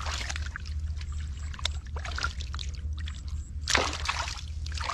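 Hands splashing and sloshing in shallow muddy water while grabbing a catfish bare-handed, in a series of short splashes with the loudest one near the end as the fish is seized and thrashes.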